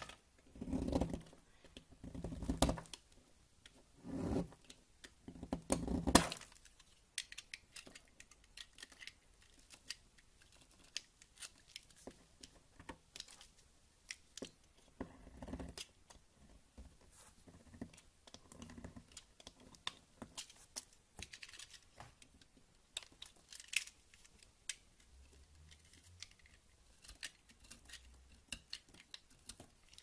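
Utility knife blade cutting and shaving a block of white soap: crunchy, scraping strokes with small crackles as pieces and flakes break off. About five louder, fuller strokes come in the first six seconds; after that the cuts are lighter, a scatter of small ticks and crackles.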